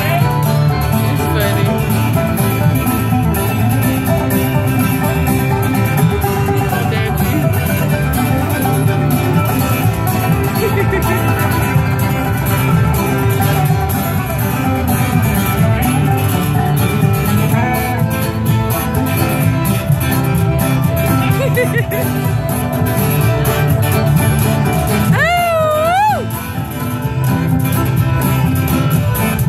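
A live folk string band plays: fiddle, mandolin, acoustic guitar, electric bass and a box-drum beat. About 25 seconds in, a single wavering, sliding note stands out briefly.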